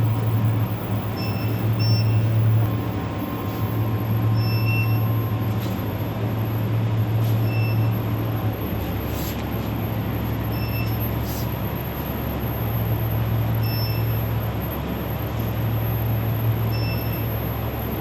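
Small SPB-DH2 induction gold-melting furnace and its cooling system running: a steady low electrical hum over fan-like noise, with short high beeps every few seconds.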